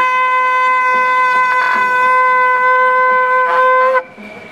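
A shofar blowing one long, loud, steady blast. It opens with a brief lower note that jumps up, holds for about four seconds, then cuts off.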